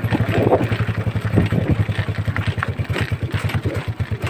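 A small engine running steadily with a fast, even thudding pulse.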